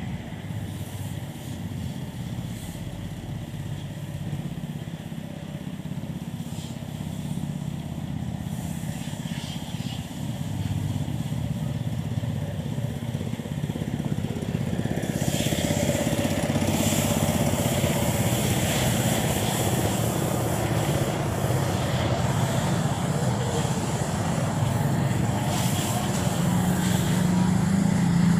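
Street traffic with motor scooters running past, louder in the second half, and one motorcycle passing close near the end.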